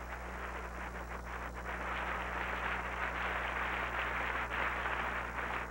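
Audience applauding, swelling a little about two seconds in, over a steady low hum.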